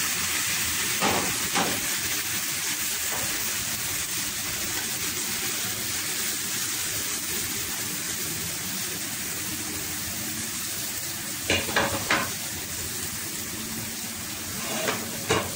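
Bitter gourd and egg omelette frying in oil in a non-stick pan over low heat, a steady sizzle. A few short taps sound over it, a pair near the end.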